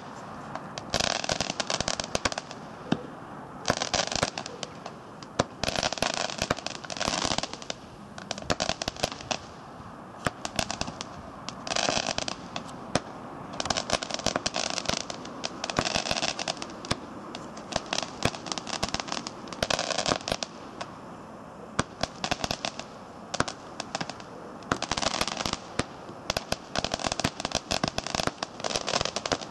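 Lesli 'Loving War' daylight firework shooting off shot after shot. Sharp bangs and crackling star bursts come in clusters every second or few, with a couple of short lulls.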